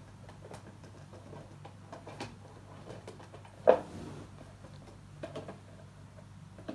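Plastic parts of a kit star projector lamp being handled and clipped together: scattered small clicks and knocks, with one sharper knock a little past halfway. A low steady hum runs underneath and cuts off at the very end.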